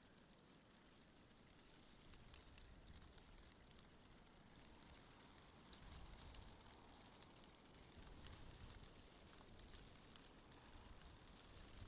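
Faint wind with a low rumble that swells and eases, with scattered light ticks and crackles over it.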